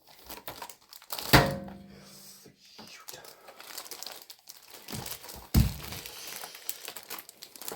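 Computer parts being unpacked: plastic and cardboard packaging crinkling and rustling, with a sharp knock about a second in that rings briefly, and another knock about two-thirds of the way through.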